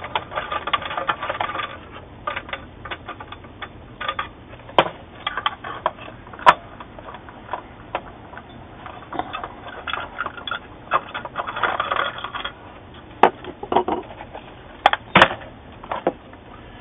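A screwdriver turning out screws in a desktop computer's metal chassis, with metal and plastic parts clicking and rattling. Dense spells of rapid clicking at the start and again about eleven seconds in, with a few sharp single knocks in between.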